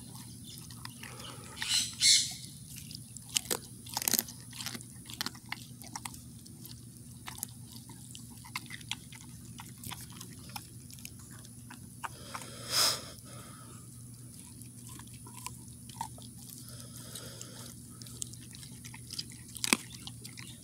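An old dog chewing raw rabbit, including bone, with worn-down teeth, so she chews slowly. Irregular wet clicks and crunches, with a few louder ones scattered through.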